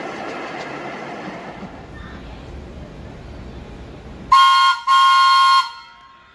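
Subway train running on the rails, its noise fading away, then a train horn sounds two loud, high-pitched blasts: a short one, then a longer one.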